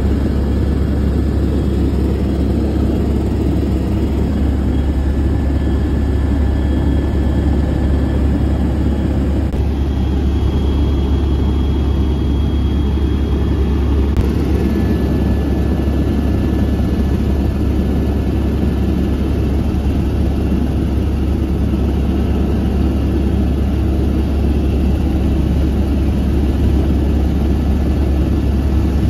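Helicopter rotor and engine, heard from inside the cabin as a loud, steady drone.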